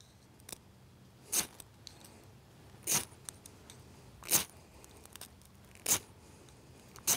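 Ferrocerium rod struck with a metal striker five times, about a second and a half apart, each a short sharp scrape, throwing sparks onto fatwood shavings to light them.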